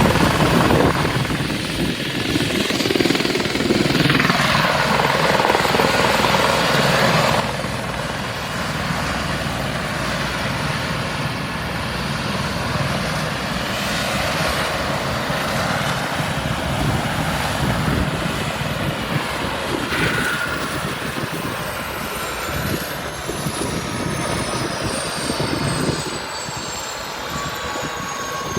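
Air ambulance helicopter's rotors and engines running loud and steady, easing somewhat about seven seconds in. In the second half a high whine falls slowly in pitch.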